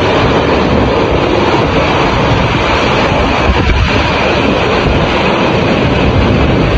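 Tornado winds rushing at close range: a loud, steady roar of wind with a deep, unsteady rumble underneath.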